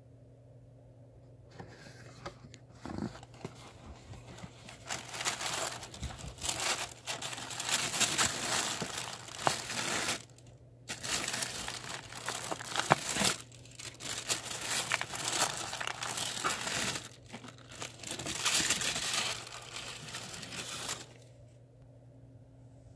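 Tissue paper crinkling and rustling as it is pulled back and items are lifted out of a cardboard box, with sharp crackles and a couple of short pauses. It starts about a second and a half in and stops a couple of seconds before the end.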